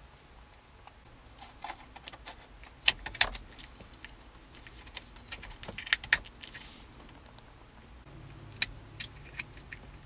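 Plastic multi-pin wiring-harness connectors and bundled wires handled and pushed into the back of a car radio module: scattered light clicks and rattles, with a few sharper clicks about three and six seconds in and at the end, as the connectors seat.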